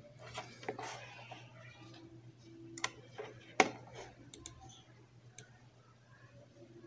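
A few scattered computer mouse clicks, sharp single ticks with the loudest about three and a half seconds in, over a faint low steady hum.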